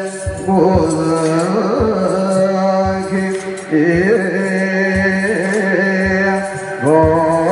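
Devotional hymn: a voice sings a wavering, ornamented melody over a steady held drone note.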